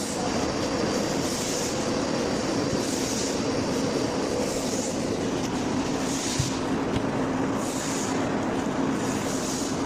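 XY-AI-399 automatic kitchen towel roll packaging machine running at high speed: a steady mechanical din with a constant hum, and a short hiss about every one and a half seconds as it cycles. Two small knocks come about two-thirds of the way through.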